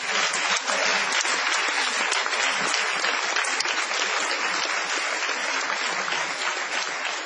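Live audience applauding steadily, fading a little toward the end.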